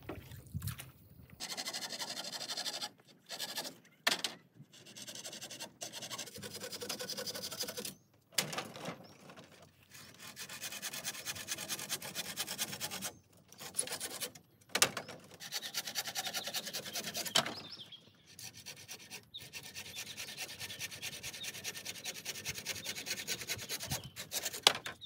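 Hand tool rasping on bamboo poles: runs of fast, even strokes lasting a few seconds each, broken by short pauses, with a few sharp knocks among them.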